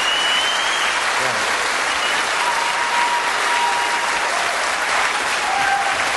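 Large theatre audience applauding steadily, with a few long whistles sounding over the clapping.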